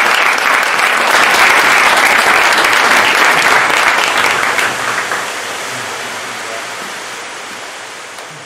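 Audience applauding, dense clapping that eases off about five seconds in and fades away.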